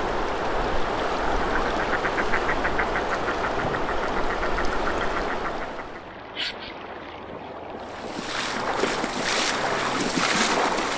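Swift river water rushing steadily, with a run of quick, evenly spaced ticks about two seconds in. Around six seconds in it drops quieter for a couple of seconds, with a single sharp click, then the rushing water comes back.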